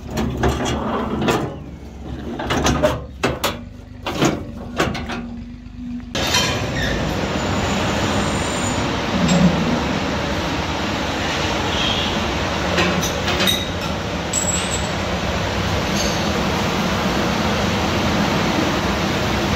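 Sheet-steel trolley tailgate knocking and clanking over a low engine hum. About six seconds in this cuts to a loud, steady noise with a few faint metallic clinks from steel pins being handled.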